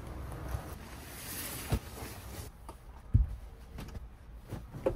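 Mattress and bedding being handled and set onto a wooden bed platform: fabric rustling with two soft thumps, the second the loudest, over wind on the microphone in the first half.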